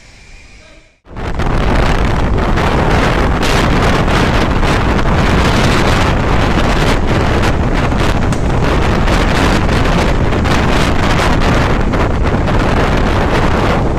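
Strong thunderstorm wind gusting hard with heavy rain, buffeting the microphone. It cuts in suddenly about a second in and stays loud and rough.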